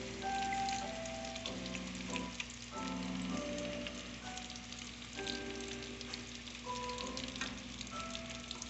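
Battered calamari frying in hot oil, a steady crackling sizzle, under background music of held chords that change every second or two.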